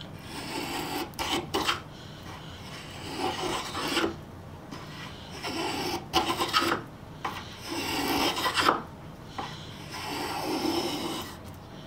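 Spokeshave scraping along the edge of a wooden board in about five push strokes, each about a second long and roughly two seconds apart. The freshly sharpened blade is only starting to take a shaving.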